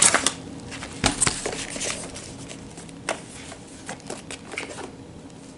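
Paper and cardboard packaging handled as a parcel is unboxed: scattered rustles and light taps, with a sharper knock about a second in.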